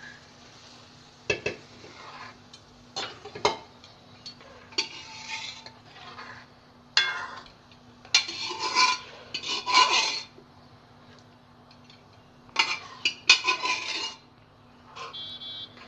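A spoon stirring and scraping in a cooking pot, with irregular clinks against its side, as boiled rajma and whole urad dal are mixed into the masala.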